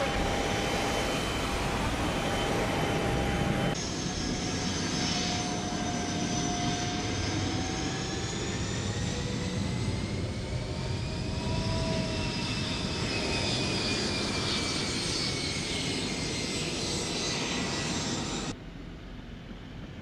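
Twin-engine jet's turbofan engines running, a steady rush with high whining tones that slowly glide up and down in pitch. The sound changes abruptly about four seconds in and becomes noticeably quieter near the end.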